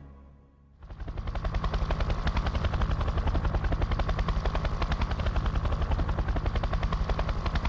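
A trailing music phrase fades out, and about a second in a helicopter's rotor chopping starts up: rapid, even beats over a steady low drone.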